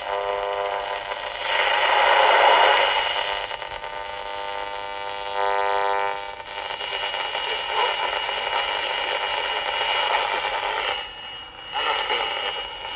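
Unitra Eltra Donald MOT-763 pocket transistor radio hissing and crackling through its small speaker as it is tuned across the long-wave band, picking up only interference. A buzzing whine of several steady tones rises out of the noise about five seconds in, and the hiss dips out briefly near the end.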